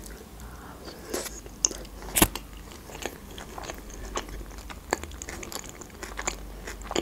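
A person biting into and chewing a Philadelphia sushi roll with teriyaki sauce: irregular soft clicks of chewing, the loudest about two seconds in.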